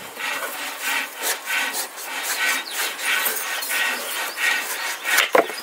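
A knife cutting through the hard rind of a ripe ash gourd (petha) in short back-and-forth sawing strokes, about three a second.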